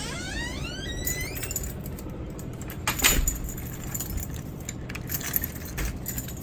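A bunch of keys jangling and clinking as they are handled, with a short rising whir in the first second or so.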